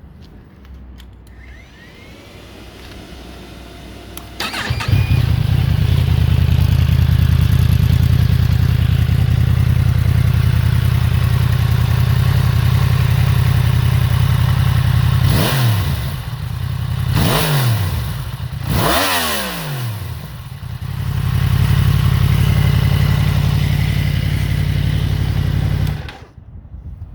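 Yamaha MT-10 motorcycle's crossplane inline-four cold-started: it catches about five seconds in and idles steadily. Three quick throttle blips follow, each dropping back to idle, and the engine is switched off shortly before the end.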